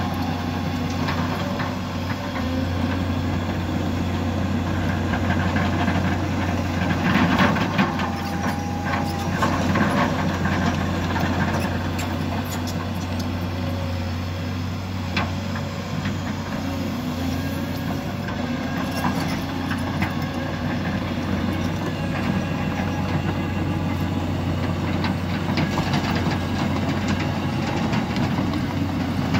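Volvo crawler excavator's diesel engine running steadily while it levels soil with its bucket, with a few short clanks.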